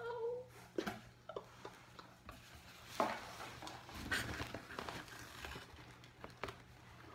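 Cardboard shipping box being handled and pulled open: flaps rustling and scraping, with scattered sharp taps and knocks, busiest in the middle.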